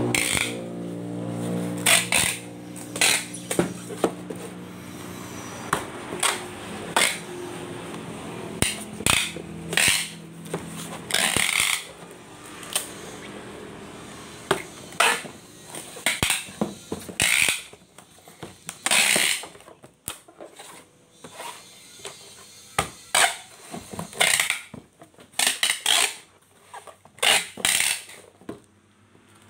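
Packing tape being pulled off a handheld tape dispenser gun and pressed onto a cardboard box: repeated rasping tape pulls, some lasting about a second, among many sharp clacks and taps of the dispenser and hands on the box.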